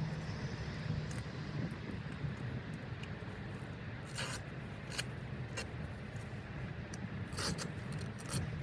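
An awning being set up on a vehicle: a few sharp clicks and knocks from its frame and poles, spread over the last half, over a low steady drone like a vehicle engine idling.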